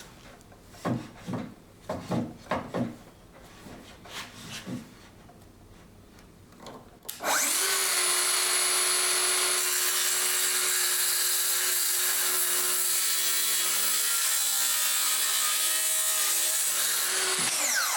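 Festool HKC 55 cordless circular saw making a freehand cut in wood without its guide rail. A few handling knocks come first. About seven seconds in, the motor spins up and runs steadily, cutting, its pitch wavering under load toward the end. It winds down with a falling whine just before the end.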